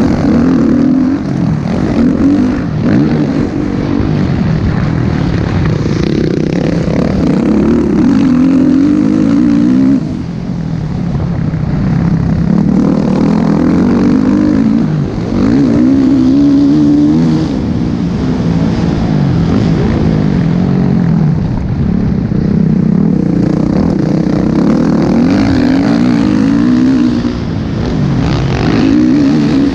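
Motocross dirt bike engine revving hard, its pitch climbing and falling again and again as the throttle is worked, with short drops in revs about ten and fifteen seconds in and again near the end.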